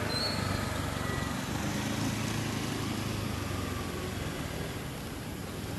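Steady low hum of a motor vehicle engine running, easing off slightly toward the end.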